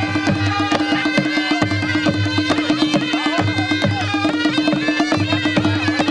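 Nepali panche baja music: a wavering reed-pipe melody over a held drone, with a fast, steady beat of drums and rapid percussion strokes.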